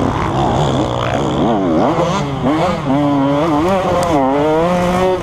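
KTM 150 SX two-stroke dirt bike engine being ridden, its pitch rising and falling quickly with the throttle in the first half, then holding steadier with small wavers.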